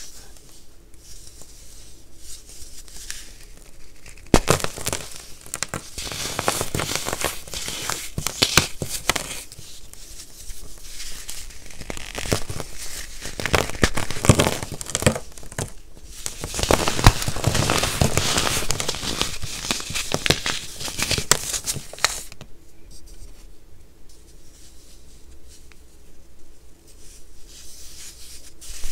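A compressed baking soda cup being crushed and crumbled between the fingers: a dense run of gritty crunches and crackles. It is softer for the first few seconds, busiest from about four seconds in until about two thirds through, then softer again.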